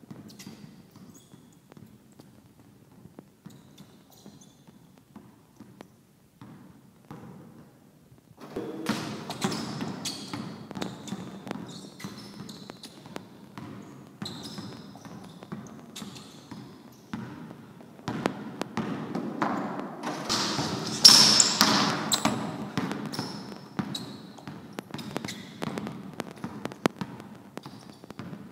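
Basketball dribbled on a hard gym floor during cone drills: sparse bounces at first, then from about eight seconds in a louder, quicker run of bounces.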